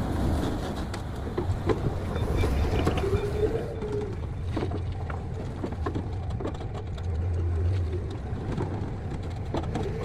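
Forklift engine running close by while it carries a bundle of 12-inch pipe over the flatbed trailer. The engine swells briefly about seven seconds in, and a few knocks and clanks come through.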